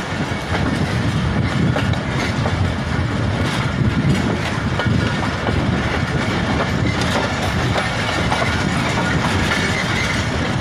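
Pakistan Railways passenger coaches rolling slowly into a station, heard from an open coach doorway: a steady rumble of wheels on the track with faint, scattered clicks.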